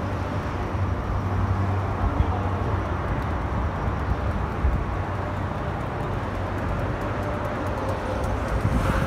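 Steady rumbling noise of a bike being ridden along a dirt trail, with a faint steady hum underneath.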